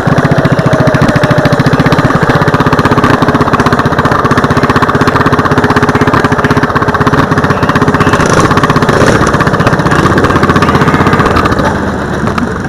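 Racing lawn mower engine running steadily with an even, rapid firing pulse, heard close up. It drops in level near the end.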